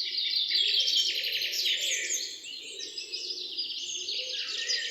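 Birdsong: several small birds chirping and trilling at once in dense, overlapping calls, loudest in the first couple of seconds.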